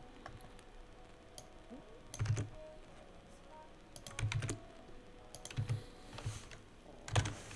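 Computer keyboard typing: several short bursts of keystrokes with pauses between them as code is entered.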